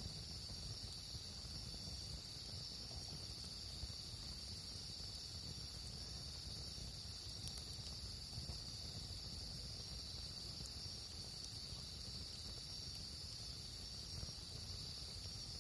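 Crickets trilling steadily at one high pitch, with a few faint clicks here and there.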